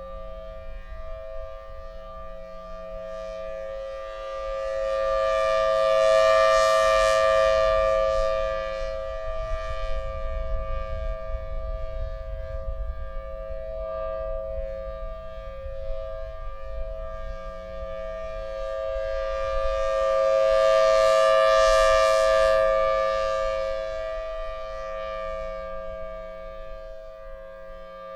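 Federal Signal Thunderbolt 1003 civil defence siren sounding its steady Alert tone, a held two-note chord that swells loud twice and fades between as the rotating horn sweeps past. Wind rumbles on the microphone underneath.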